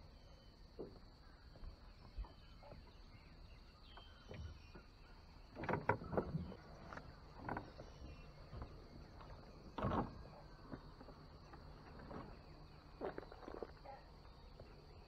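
Scattered knocks and thumps of a person moving about and handling gear on a bass boat's deck, loudest in a cluster about six seconds in and a sharp knock near ten seconds, over a steady faint high-pitched hum.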